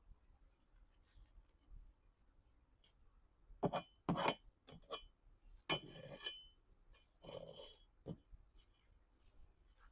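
Metal hand trowel clinking and scraping against a window-box container while digging plants out. A few sharp knocks come about four seconds in, then a ringing scrape and several lighter clinks.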